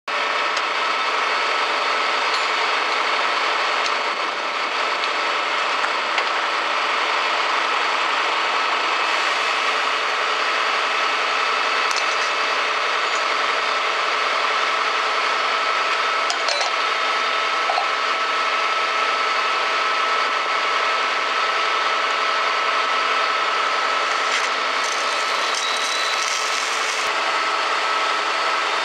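Fire engines running steadily at a fire scene, their engines and pumps making a constant whine over a dense hiss, with hose water spray mixed in.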